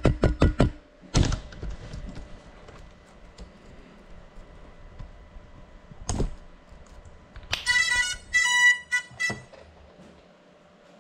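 A fast, even beat cuts off just under a second in. Two sharp knocks follow, one about a second in and one about six seconds in. Near the end comes about two seconds of short electronic beeps at a few pitches, likely from the grounded FPV drone.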